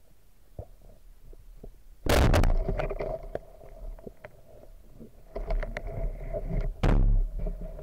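Underwater handling noise from a speargun-mounted camera: scattered clicks and knocks as the gear meets rock, and two loud, harsh scrapes about two and seven seconds in.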